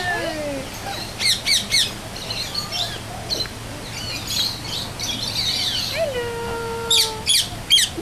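Several aviary birds calling: sharp, quick down-sweeping chirps a little over a second in and again near the end, with scattered whistles and squawks between.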